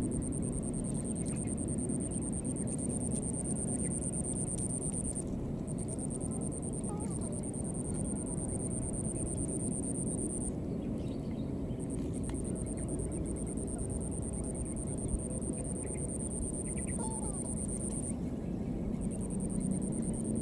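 Outdoor ambience: a steady high-pitched insect drone that stops and starts again several times, over a steady low rumble, with a few brief faint chirping calls.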